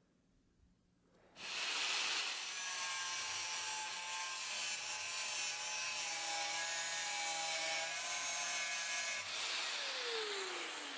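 Angle grinder with a thin cut-off disc cutting into a hardened high-speed steel bar, starting abruptly about a second in and running steadily with a high whine under the grinding noise. Near the end the disc is lifted off and the motor spins down in a falling whine.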